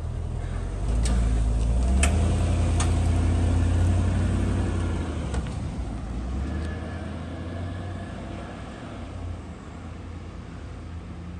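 Pickup-based tow truck pulling away with a car on its wheel-lift. The engine is loudest in the first few seconds, then fades as the truck drives off, with three sharp clanks in the first three seconds.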